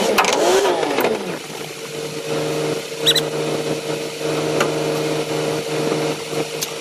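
Mooring boat's engine changing speed, its pitch falling over the first second and a half, then running at a steady note. A short clink about three seconds in.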